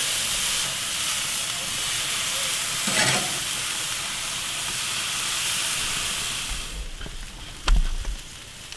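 Beef steaks sizzling on a hot grill grate as they are turned with metal tongs. A sharp click comes about 3 s in. The sizzle fades about 7 s in, and a low thump follows near the end.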